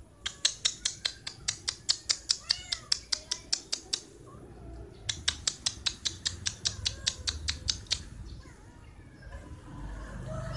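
A cat meowing a couple of times over a fast, even run of sharp clicks, about six a second, that pauses for about a second midway.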